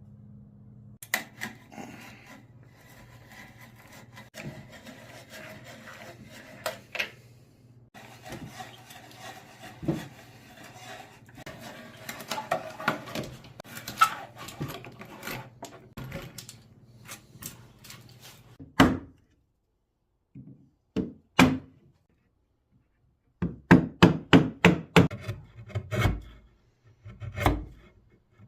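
A hand-turned bit boring into wood, a continuous grinding and scraping with small clicks. Then, from about two-thirds of the way through, sharp knocks of a mallet driving a chisel to chop out the mortises, in quick runs of strikes.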